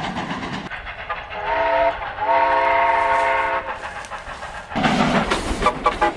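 Steam whistle sounding a chord: a short blast about a second and a half in, running into a longer steady blast of about a second and a half. Near the end comes a louder burst of noise with a few brief toots.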